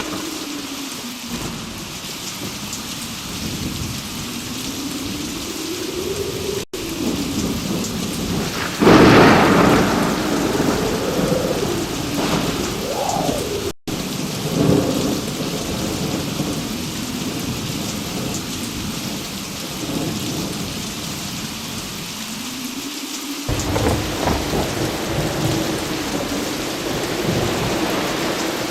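Heavy rain falling steadily during a thunderstorm, with thunder rumbling; a loud clap of thunder comes about nine seconds in and rolls on for several seconds.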